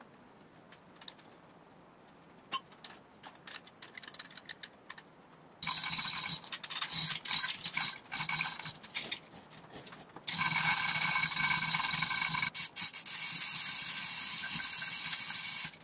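Manual chain hoist being worked by its hand chain, the steel chain clattering and ringing as it runs through the hoist in two long stretches, after a few seconds of lighter clinks of chain being handled.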